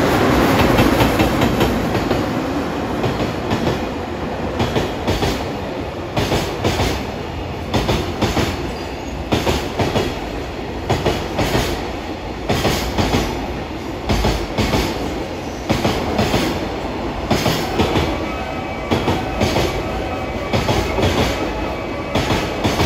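A JR Freight EF210-100 electric locomotive and its Koki container flatcars passing at speed, loudest as the locomotive goes by in the first second or two. Then the wagons' wheels clatter over the rail joints in regular clusters of clicks, about one cluster a second.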